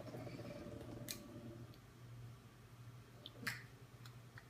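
Quiet small room with a few faint, isolated clicks, one about a second in and another near three and a half seconds.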